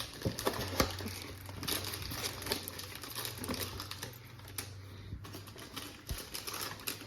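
Irregular light clicks and rustling from small objects being handled close by, over a faint low steady hum.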